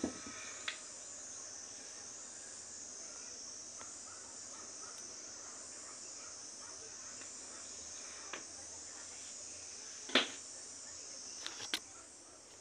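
Steady, high-pitched chorus of insects with a gently pulsing trill, punctuated by a few light knocks and clicks, the loudest about ten seconds in.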